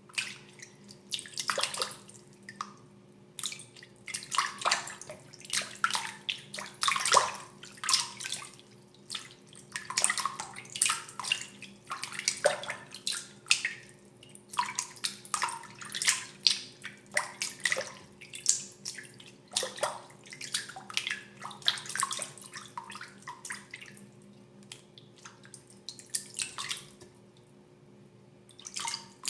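Water splashing and dripping in short, irregular bursts, some sharp and splashy, others small drips, with a quieter stretch near the end; a faint steady hum sits underneath.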